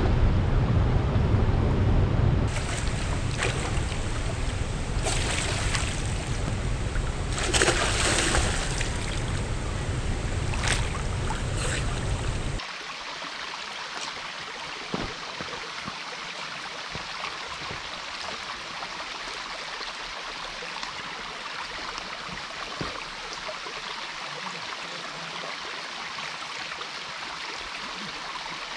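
Fast river water rushing and splashing close around a camera at the water's surface, with a heavy low rumble and several sharp splashes. About twelve seconds in it cuts suddenly to a quieter, steady flow of stream water.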